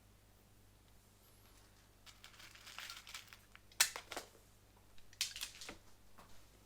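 Faint handling noise of small tools and connector parts: rustling about two seconds in, then four sharp clicks, as a wire is worked into a crimp connector.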